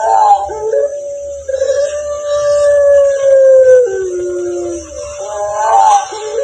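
Dog howling in long, siren-like howls. The longest holds one steady pitch for about two and a half seconds and sags at the end; shorter, wavering howls come at the start and near the end.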